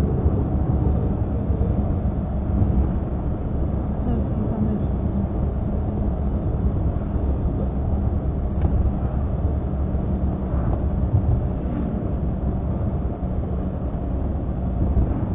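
Steady engine and tyre road noise of a car driving along, heard from inside the cabin, with a steady low hum.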